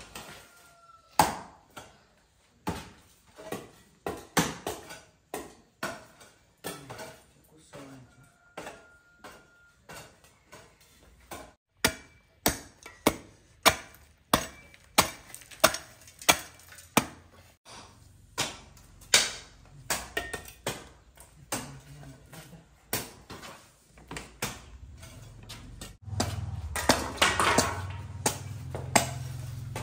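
A hand tool striking repeatedly, sharp knocks about one or two a second with uneven spacing. A low hum comes in near the end.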